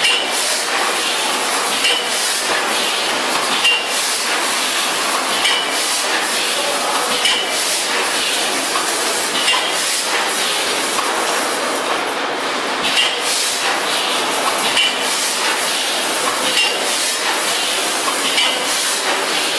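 VFS5000FS vertical form-fill-seal packing machine with its multihead weigher running: a steady mechanical hiss, with a short metallic clink repeating about every two seconds in time with the machine's cycle.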